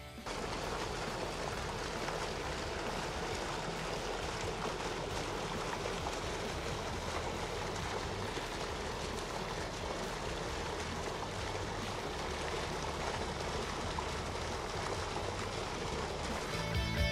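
Water gushing from a large fill hose into a swimming pool: a steady rushing splash that holds at one level.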